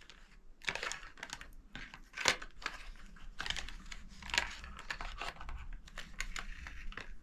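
Hands working a small candle out of its packaging: light, irregular clicking and crinkling of the wrapping throughout.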